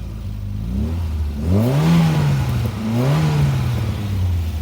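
1984 Volkswagen GTI's four-cylinder engine idling, then blipped twice by hand at the throttle: the revs rise and fall about a second and a half in and again about three seconds in, then settle back to idle.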